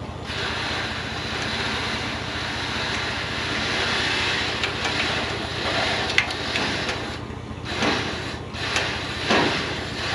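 An engine running steadily under load as the bent truck bumper is pulled straight. It drops away briefly about seven seconds in, then a few sharp knocks and creaks of metal follow near the end.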